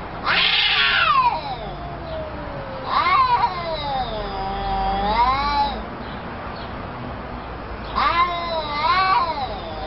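Two cats yowling at each other in an angry standoff: long, wavering yowls that rise and fall in pitch. There is one right at the start, a longer one about three seconds in, and another near the end.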